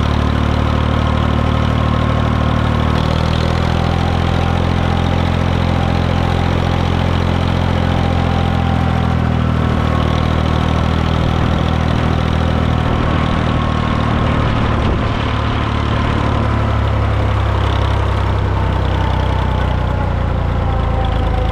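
International 454 tractor's diesel engine running steadily, its speed holding nearly even with only slight drifts in pitch.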